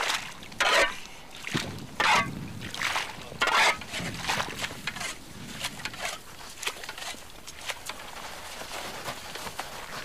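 Water splashing and sloshing: about five loud splashes roughly a second apart, then smaller, fainter splashes.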